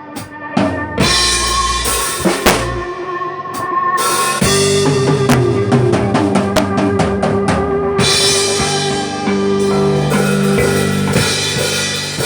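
A small band playing, with the drum kit to the fore: scattered kick and snare hits, then from about four and a half seconds in held chords under a quick roll of drum strokes.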